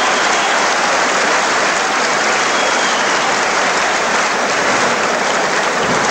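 Arena crowd cheering and applauding loudly and steadily.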